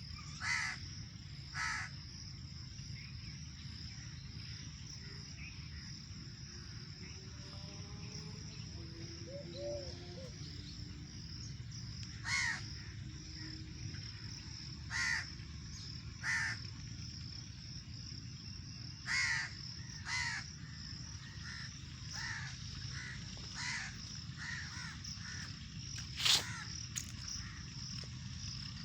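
Crows cawing, short single calls a few seconds apart, with one louder caw near the end, over a steady high-pitched insect drone and a low rumble.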